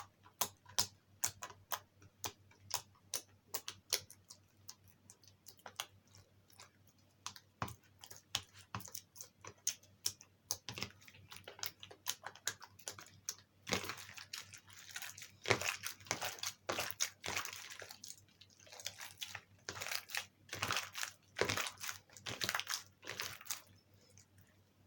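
Slime with toothpaste mixed in being kneaded and squeezed by hand, making sharp clicks and pops about two or three a second. About halfway through they turn into denser, crackling squelches.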